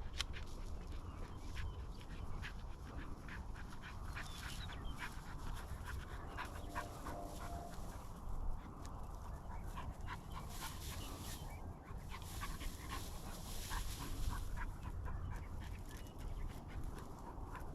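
Bird dog panting while it works through the field, with many small crackles of dry grass and brush and a low wind rumble on the microphone.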